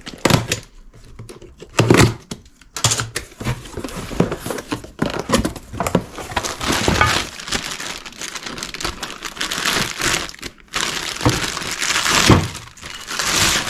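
Packaging being opened by hand: box tape slit and cardboard flaps pulled open, then a plastic bag crinkling as a brake disc is lifted out, with knocks and rustles as the box is handled. The crinkling grows denser and continues through the second half.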